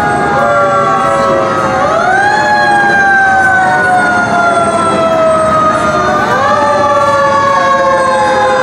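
Fire truck siren wailing. Its pitch sweeps up quickly, then falls slowly over several seconds, and it is sounded again twice, with more than one tone sounding together.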